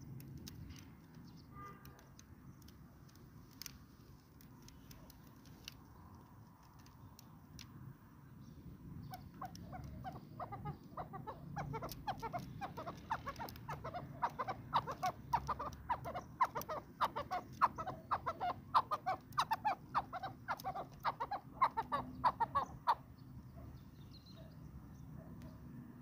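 Chukar partridge (chakor) calling: a long run of rapid, repeated clucking notes that starts about a third of the way in, grows louder and stops a few seconds before the end.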